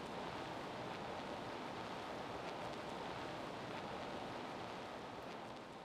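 Steady background hiss with no speech, fading out near the end.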